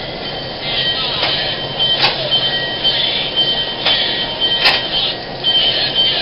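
Alco S1 switcher locomotive running under way, heard from its side walkway: a steady engine and running noise with rail clatter. A few sharp clanks come at about one, two, four and nearly five seconds in, and a thin high tone comes and goes.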